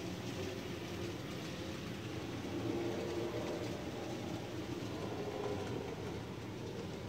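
Model freight train running on layout track: a steady rumble of wheels on rail and the locomotive's motor, swelling slightly a few seconds in.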